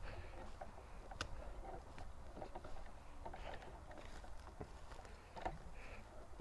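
Light rustling and scattered small clicks over a steady low rumble, with one sharper click about a second in.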